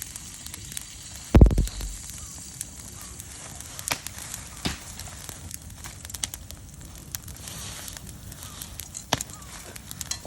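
Fallen leaves burning in a fire pit, crackling with scattered sharp pops, and one heavy low thump about a second and a half in.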